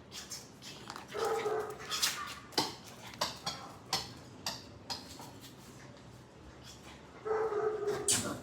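Terrier puppy giving short high-pitched whining yips, one about a second in and another near the end, with a few sharp taps in between.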